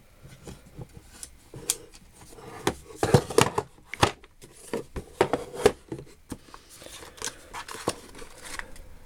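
Small metal hand tools being handled: irregular clicks and clinks, several sharp ones in quick succession about three seconds in and again a couple of seconds later.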